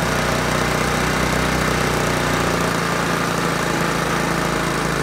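Small single-cylinder scooter engine of a TVS Jupiter idling steadily, running only on the petrol left in the carburettor with its fuel pipe disconnected.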